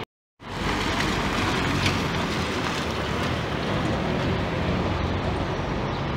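Intercity coach moving slowly across wet pavement, engine running steadily with an even hiss of tyres on the wet ground, after a brief cut to silence at the very start.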